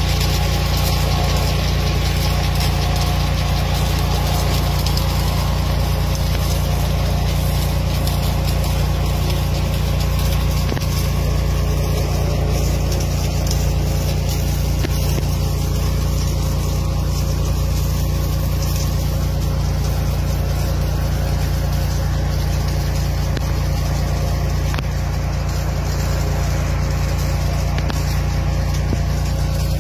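An engine running steadily at a constant speed, giving an even low drone with no change in pace.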